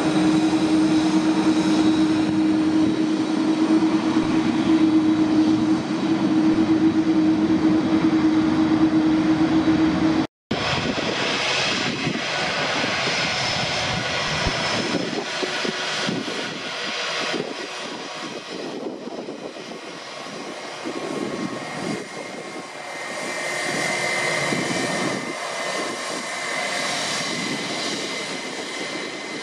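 Jet airliner engines running: a steady low hum for about ten seconds, then an abrupt cut to rougher, more varied engine noise, with a high whine coming in near the end.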